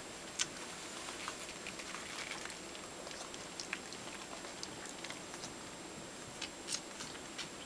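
Two-week-old Soft Coated Wheaten Terrier puppies stirring in a pile on a fabric comforter: faint, scattered small clicks and soft rustles over a steady hiss, with a sharper click about half a second in and another near the end.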